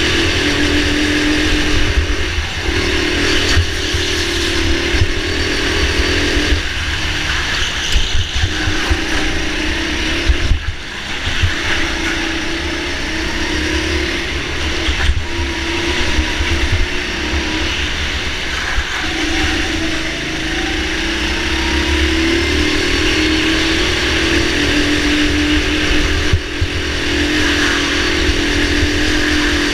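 Go-kart motor running hard on laps. Its pitched note holds on the straights, drops out briefly several times as the driver lifts off for corners, then picks up again. Heavy low rumble and buffeting from the moving kart run underneath.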